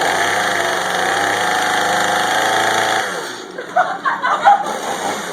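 Two-stroke chainsaw engine running steadily, then dropping away suddenly about three seconds in. Shouting and whooping follow.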